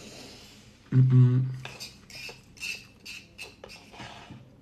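Metal fork clicking and scraping in a wooden bowl of couscous as it is stirred and scooped, a string of short clicks. A brief hum from a voice about a second in is the loudest sound.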